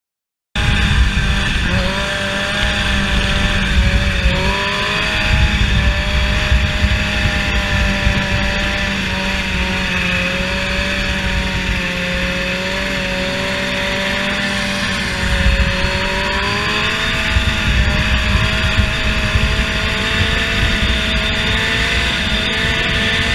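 Motorcycle engine running on the move, its pitch slowly rising and falling with the throttle, under heavy wind rumble on the camera microphone. It starts abruptly under a second in.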